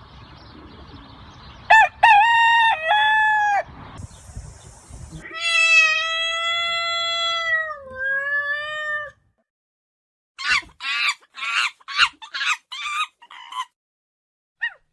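Rooster crowing twice: a short broken crow, then a longer one ending on a long held note. After it comes a chicken's run of about nine short clucks.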